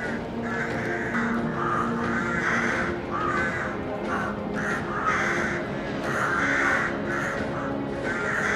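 A colony of rooks cawing: many harsh caws overlapping, two or three a second without a pause, over background music with long held low notes.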